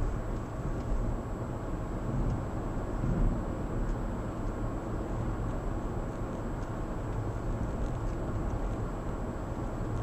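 Steady road and engine rumble heard from inside a moving car's cabin, with tyre hiss and no sharp pop.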